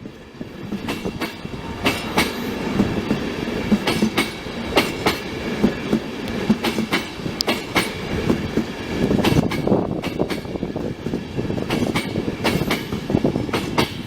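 A train running along the track, its wheels clacking in an uneven string of sharp clicks over a steady rumble.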